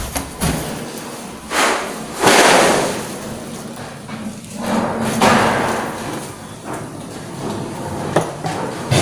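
A metal door knob turning and its latch clicking as a door is opened, followed by several swells of rushing noise and a few knocks.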